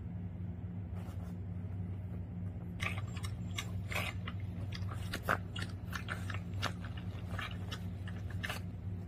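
A dog's chewing and lip-smacking sounds from an eating video, played through a phone's small speaker: a run of short crunchy clicks from about three seconds in until near the end, over a steady low hum.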